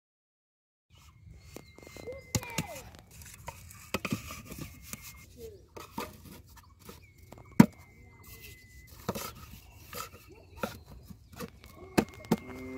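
Hollow plastic PVC pipes knocking and clattering against one another as they are laid side by side by hand, with sharp knocks every second or two. A thin, steady high tone comes and goes in the background.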